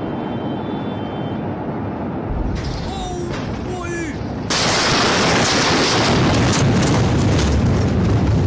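Blast wave of the Beirut port ammonium-nitrate explosion reaching a phone microphone. A deep rumble builds a little over two seconds in, and about four and a half seconds in a sudden loud roar of noise takes over and holds.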